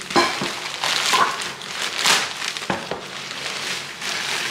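A parcel being opened by hand: its packaging crinkles and tears in short, irregular rustles, with a couple of sharp clicks.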